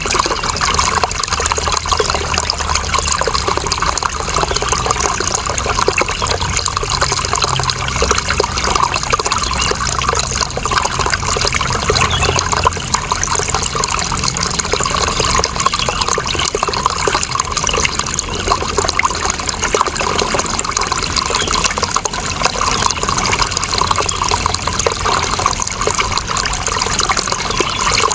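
Running water flowing and splashing steadily, an even trickling rush with no breaks.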